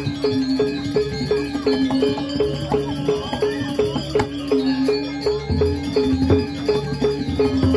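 Balinese gamelan playing for a Barong dance: a steady metallic pulse of about three strokes a second over sustained deep gong tones, with cymbal-like clashes, and a lower gong tone entering about five and a half seconds in.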